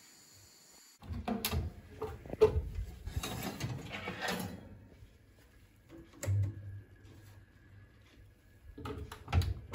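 Metal oven rack rattling and scraping as a glass baking dish is drawn out of the oven, then a dull thump and a few sharp clicks as things are set down.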